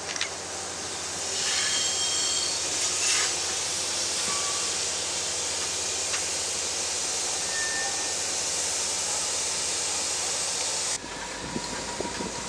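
Commuter train of Metro-North coaches passing close by, cab car leading: a steady rumble and hiss of wheels on rail that swells about a second in, with a brief high squeal about two seconds in. It cuts off abruptly near the end.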